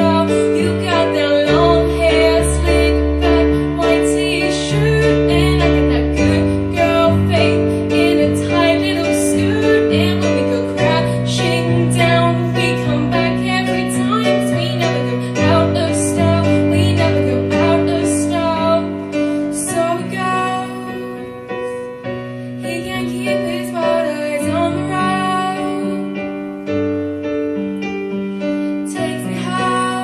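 A young woman singing into a microphone over piano accompaniment, the chords changing every few seconds under the melody.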